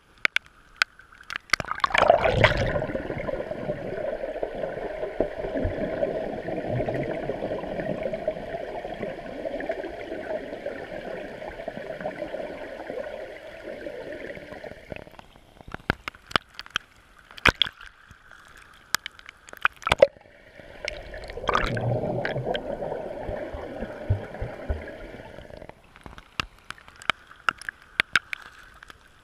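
Raindrops hitting a swimming-pool surface as scattered sharp ticks. Twice the sound turns into a muffled, steady rushing and bubbling, from about two seconds in for some thirteen seconds and again for about five seconds past the twenty-second mark, each time starting with a splashy surge: the pool heard underwater while a swimmer moves nearby.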